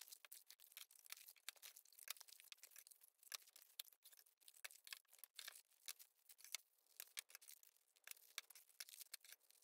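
Faint rustling and tearing of packaging being opened by hand, a quick, irregular string of small crinkles and clicks.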